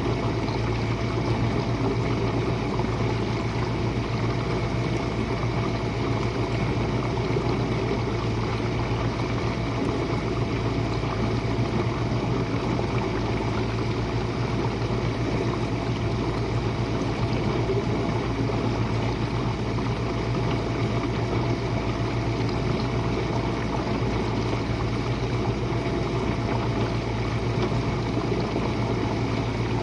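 Jenn-Air dishwasher running its Quick Wash cycle: a steady pump hum with water rushing and spraying inside the tub.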